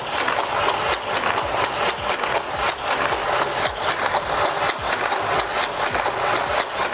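Battery-powered booster motors of a Hot Wheels Corkscrew Crash track set whirring steadily. A toy car clatters around the plastic track at high speed with rapid clicks as the boosters fling it round.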